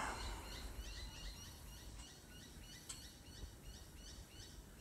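Faint, rapid, regular high chirping, about four chirps a second, over low outdoor background rumble that eases off about two seconds in; a single faint click near the end.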